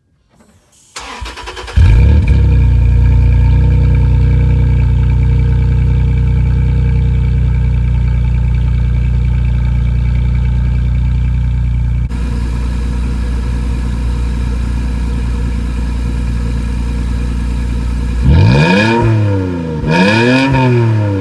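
Toyota Tacoma's 3.5-litre V6 through an MBRP cat-back exhaust: cranked and started about two seconds in, idling steadily, then revved twice near the end, the pitch rising and falling each time.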